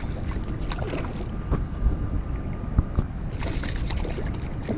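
A hooked bass splashing and thrashing at the water's surface, with a burst of splashing about three and a half seconds in, over a steady low rumble.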